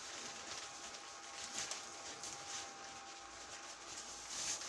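Plastic rain poncho rustling and brushing against the microphone, in soft irregular swells. Under it, a faint steady whine from the inflatable costume's blower fan.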